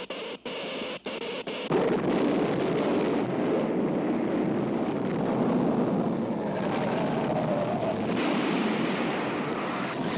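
Cartoon earthquake sound effect: a pulsing electrical hum broken by short gaps, then about two seconds in a sudden, louder rumbling noise that continues steadily, with orchestral music faintly under it.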